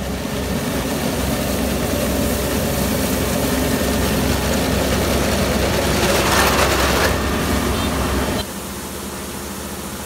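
Kubota ER470 combine harvester running steadily while reaping rice, engine and cutting header together, swelling briefly about six seconds in. About eight seconds in the sound drops suddenly to a quieter steady machine hum.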